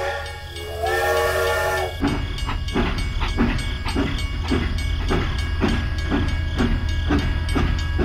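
A horn with a chord of several tones sounds two held blasts, a short one and then a longer one of about a second. A steady rhythmic chugging of about three beats a second follows, over a low hum.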